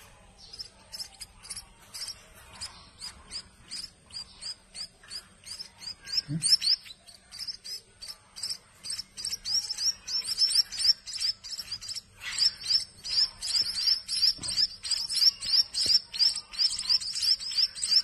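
A brood of nestling songbirds, which the keeper takes for munias or a similar finch, giving rapid, high, repeated begging chirps as they are fed water from a syringe. The chirping grows much louder about halfway through.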